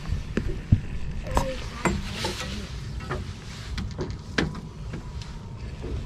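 Low rumble, wind and water around a small boat, with scattered light knocks and clicks at irregular intervals.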